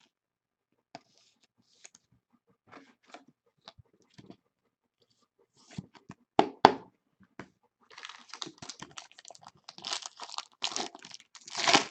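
Card packaging being handled: a few light clicks, two sharp knocks about six and a half seconds in, then plastic or foil wrapping being torn and crinkled, loudest near the end.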